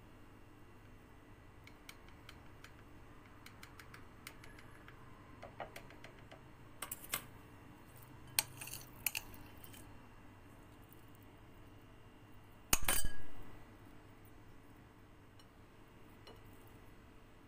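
Dishes and utensils clinking: scattered light taps and clinks against a glass bowl and plate, then one much louder clatter about three-quarters of the way through.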